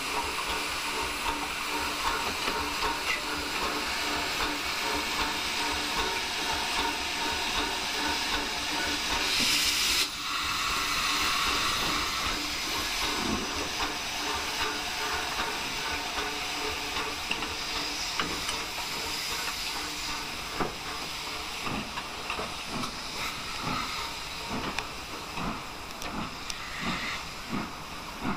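LMS Black Five 4-6-0 steam locomotive starting a passenger train, with steam hissing steadily from its open cylinder drain cocks and a brief louder burst of hiss about ten seconds in. In the second half, slow, regular exhaust chuffs come through as it gets under way.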